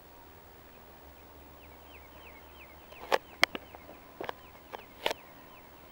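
A small bird chirping a quick run of short notes, each falling in pitch. From about halfway, a handful of sharp clicks follow; they are the loudest sounds.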